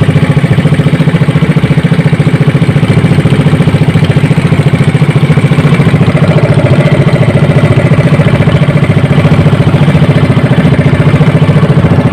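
Motorized outrigger boat's small engine running loud and steady with a fast, even pulsing beat as the boat travels.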